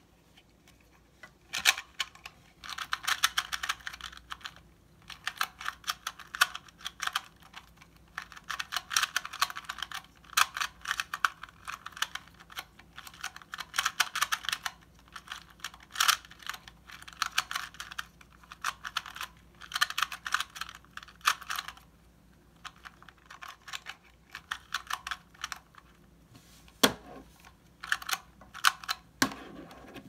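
Plastic 2x2 Rubik's cube being turned rapidly by hand: a fast clatter of clicks from the layers snapping round, in bursts of a few seconds with short pauses between.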